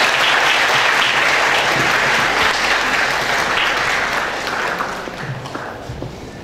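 Audience applauding, steady at first and dying away over the last couple of seconds.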